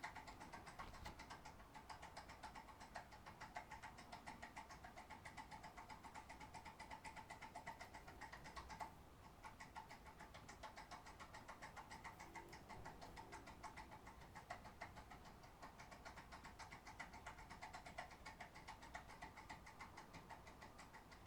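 Faint, rapid clicking, about five clicks a second, of a foil-impression lock pick being worked back and forth inside a 6-pin Kale cylinder lock. There is a short pause about nine seconds in.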